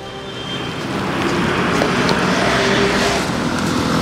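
Engine of a roadside construction machine running steadily. It grows louder over the first second and a half, then holds at a steady pitch.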